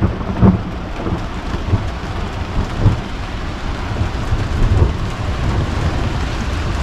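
Heavy rain pouring down in a thunderstorm, with a deep rumble underneath and a few louder splashes.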